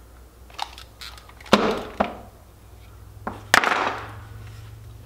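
Handling noise as over-ear headphones are taken off and put down on a desk: a few light clicks, then two louder knocks, each followed by a short rustle that fades.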